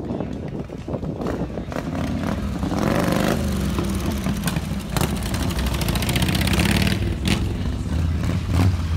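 Cruiser motorcycles riding past one after another, their engines rumbling and revving up as each pulls by, loudest about three seconds in and again around six to seven seconds.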